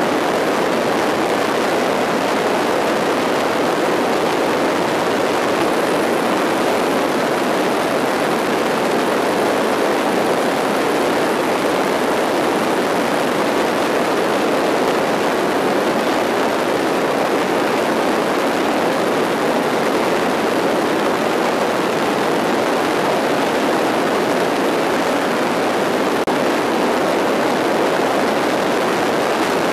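Steady noise of an aircraft in flight heard at its open jump door: engine drone mixed with the rush of the airstream, with no separate knocks or voices standing out.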